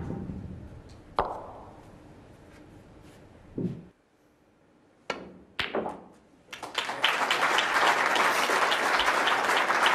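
Snooker balls clicking: a sharp cue strike, another click about a second later, then a dull thud. After a brief silence come two more clicks, then an audience applauding from about six and a half seconds in.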